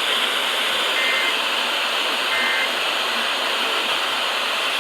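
Steady hiss of a weak radio signal, with two short, faint two-tone data bursts about a second apart: the end-of-message data bursts of an Emergency Alert System transmission.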